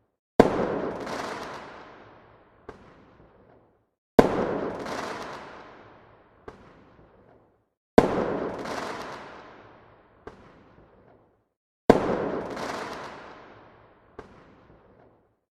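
Fireworks going off: four loud bangs about every four seconds, each trailing off over two to three seconds, with a smaller pop between each pair.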